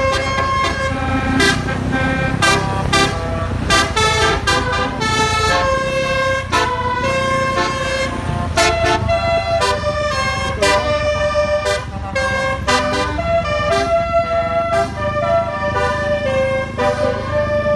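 Telolet multi-tone horn on a bus playing a quick melody, loud, held notes that jump from pitch to pitch, over a steady low engine rumble.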